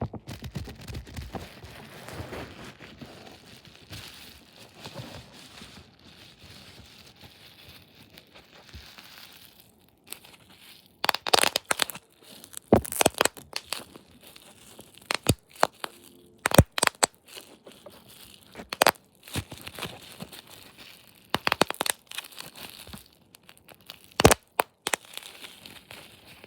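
Soft rustling and crinkling for about ten seconds, then a run of irregular sharp cracks and clicks.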